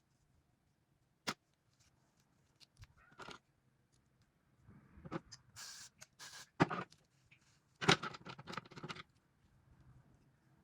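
A sharp click, then several seconds of scattered rustling, scraping and clicking handling noises, loudest in two clusters past the middle.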